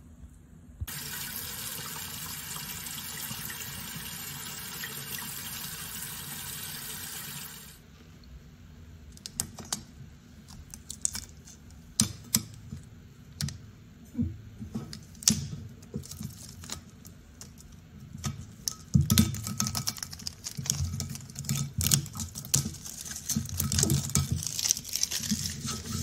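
Tap water running for about seven seconds and then cut off suddenly, rinsing etching cream off a glass dish. After that, vinyl stencil being peeled off the glass, with irregular crackles, clicks and taps.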